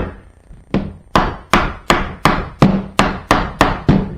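A mallet repeatedly tapping a new hinge along the rail of a BMW motorcycle pannier, about ten sharp, evenly paced strikes after a brief pause at the start.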